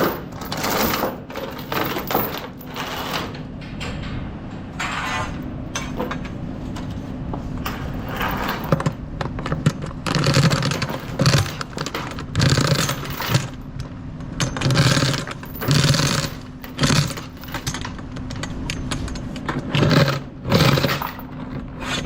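Steel securement chains rattling and clanking in repeated short bursts as they are handled, over a steady low hum.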